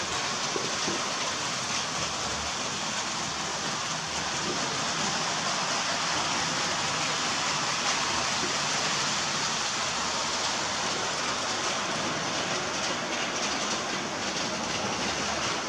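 H0-scale model trains running on the layout's track: a steady, even rolling noise with no changes.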